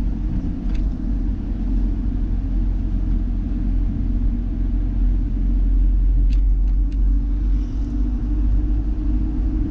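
Car's engine and road noise heard from inside the cabin while driving: a steady low rumble, with a few faint clicks about six to seven seconds in.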